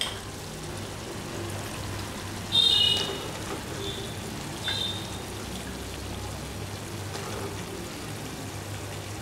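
Chicken frying in oil in a pan, a steady sizzle, as eggplant pieces are dropped in. About two and a half seconds in comes a brief high ringing sound, the loudest thing here, with two fainter ones a second or two later.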